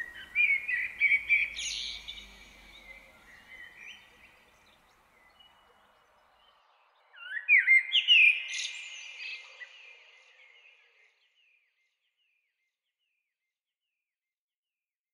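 Common blackbird singing: two fluty, warbling phrases, the first at the start and the second about seven seconds in, each ending in a high twittering flourish.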